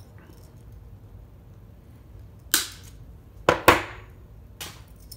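Cutters snipping through the lure's stiff wire: three sharp snaps, the first about two and a half seconds in and two more close together a second later, then a fainter click.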